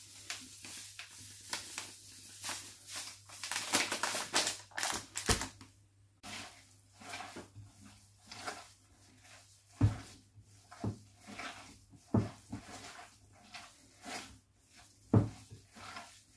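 Breadcrumbs shaken from a plastic bag into a glass bowl, then hands kneading raw minced meat with grated vegetables, egg and breadcrumbs: a run of short, irregular rustling and squishing noises with a few dull knocks against the bowl.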